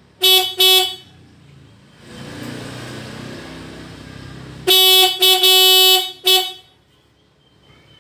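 Aftermarket Hella Supertone horn on a Yamaha Xabre motorcycle being sounded: two quick short honks, then after a pause a short honk, a longer one of about a second and another short one, loud and bright.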